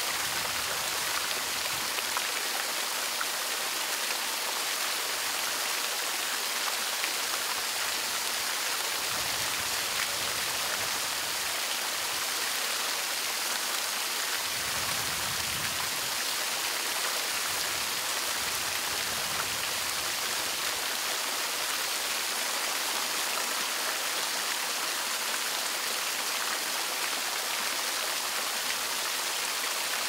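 Water fountain running: many thin jets from a bronze sculpture fountain spraying and splashing into its basin, a steady, even hiss of falling water.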